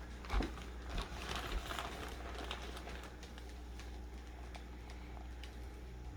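A few soft knocks and some rustling from kitchen handling in the first couple of seconds, over a steady low hum.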